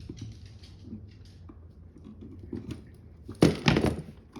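Small clicks and scrapes of pliers working a wire end, bending a J hook to go around a receptacle screw terminal, with a louder rough scraping clatter about three and a half seconds in.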